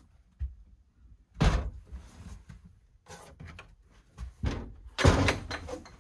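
A series of wooden knocks and thuds, loudest about a second and a half in and again about five seconds in: a wooden cabin door on a boat being opened and bumped shut.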